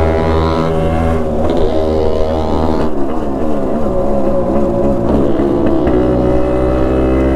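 Yamaha RX135's single-cylinder two-stroke engine running under way, its pitch dipping and rising as the revs change, then steadier near the end. The bike is being ridden with its clutch not working, which the rider takes for a broken clutch cable.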